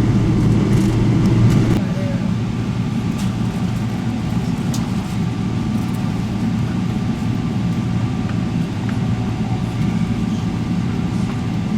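Steady low rumble inside the cabin of a Boeing 777-200LR on the ground after landing, easing a little about two seconds in, with faint passenger chatter.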